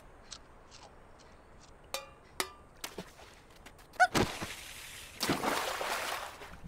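Cartoon sound effects: a few light clicks, then about four seconds in a sudden impact with a short squeak, followed by a rushing noise lasting about a second.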